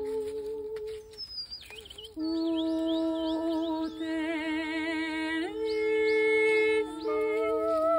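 Women's voices humming and singing long wordless notes in harmony, some held with a slow vibrato, with a brief lull about a second in. Around three seconds in, a quick run of high chirps sounds over the held notes.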